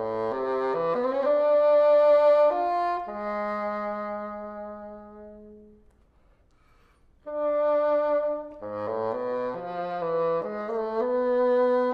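Solo bassoon playing a melodic line: a quick rising run of notes, then a long held note that dies away into a pause of about a second, before a new phrase of quick notes begins.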